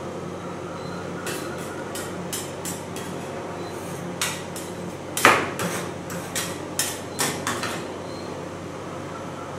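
Metal ice cream spatulas clinking, scraping and being set down on the steel cold plate of a rolled ice cream machine: a string of sharp metal knocks, the loudest about five seconds in, over a steady low hum.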